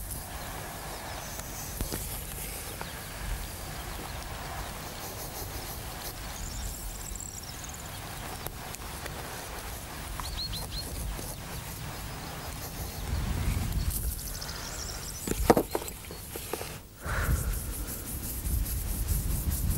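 Outdoor ambience: wind rumbling on the microphone, with a few short high bird chirps now and then and a quick cluster of sharp knocks about three-quarters of the way through.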